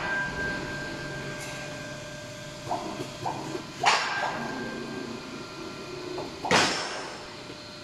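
Steel angle bars clanking as a flip-feeding rack turns them over onto the roller conveyor of an angle steel punching line. A few light knocks come first, then two loud metallic clanks with a short ring, about four seconds in and again two and a half seconds later, over a steady machine hum.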